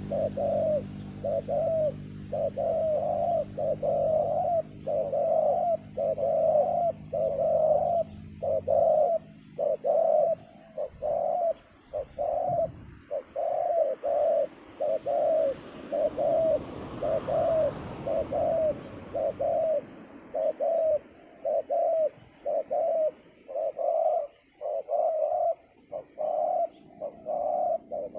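Spotted doves cooing: a long, unbroken series of short, low coo notes repeated well under a second apart.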